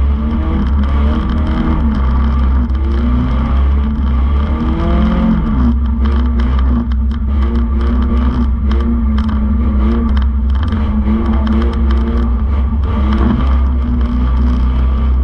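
Banger racing car's engine revving hard and easing off, heard from inside the stripped-out shell over a heavy low rumble. The pitch climbs several times in the first few seconds and drops about five seconds in, with the bare bodywork rattling and knocking.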